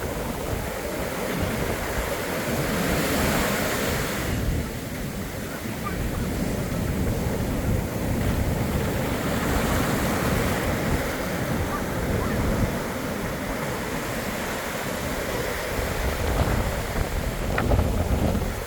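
Surf breaking and washing up the beach in swells that rise and fall every few seconds, with wind gusting across the microphone.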